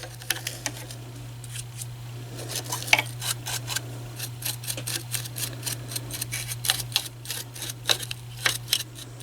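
Small lint brush scrubbing out the bobbin area of a Janome MC6650 sewing machine: quick, irregular scratchy strokes of bristles against the metal parts as the built-up lint is brushed loose.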